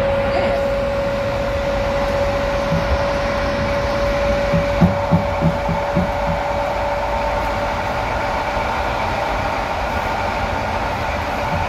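EP07 electric locomotive moving with its coaches while shunting. It makes a steady rumble with a held whine that fades out about two-thirds of the way in, and a quick string of clacks about halfway through.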